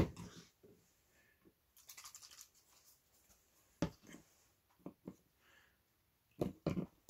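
Small paint pots being handled on a cutting mat: a sharp knock at the start, a short scratchy rustle about two seconds in, then scattered taps and knocks as a pot is picked up and set down.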